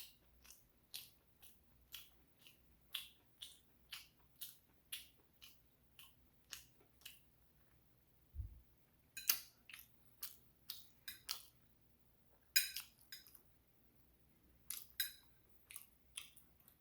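Close-up mouth sounds of a person chewing meatballs and spaghetti: soft wet clicks about two a second, later in quicker clusters, with one low thump about eight seconds in.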